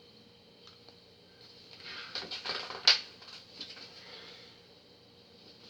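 Rustling and crackling handling noise, with a sharp click near the middle, as a DVD box set and its booklet are handled.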